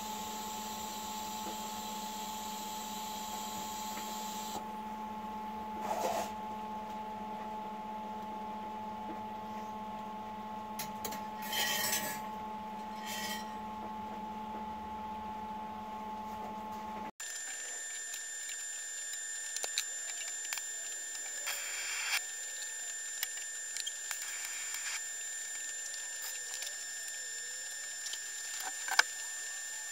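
Steady electrical hum and whine from a TIG welding setup in use, with a few light metallic clinks in the first half. The tone changes abruptly partway through at an edit.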